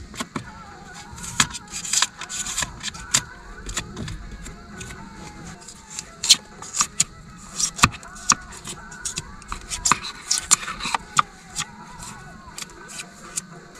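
Irregular sharp clicks and knocks of hands working plastic pipe fittings and hose clamps on a buried insulated water line, with music underneath.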